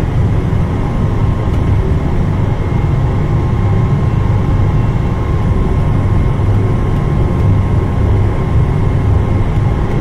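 Industrial furnace's gas burners firing at high fire with their combustion-air blower: a loud, steady low rumble with a faint steady whine over it.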